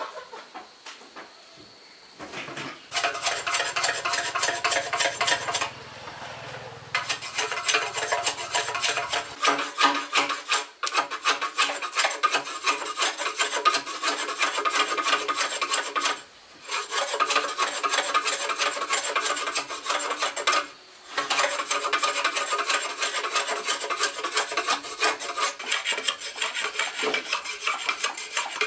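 Rapid, continuous scraping and rubbing strokes in several runs, with short breaks between them.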